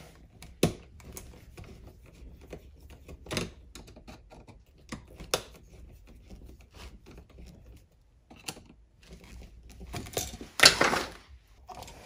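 Scattered small clicks and scrapes from a flat-blade screwdriver working the terminal screws of a duplex electrical outlet as its wires are tightened. About ten and a half seconds in comes a louder scraping rattle as the outlet and its stiff wires are pushed into the plastic box.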